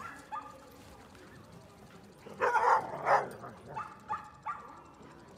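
A dog barking: a cluster of loud barks about two and a half seconds in, then three shorter barks around four seconds.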